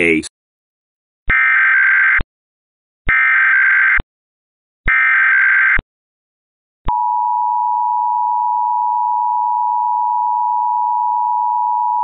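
Emergency Alert System tones: three SAME header data bursts, each just under a second long with about a second of silence between them, then the steady two-tone EAS attention signal starting about seven seconds in. The header encodes a Required Monthly Test.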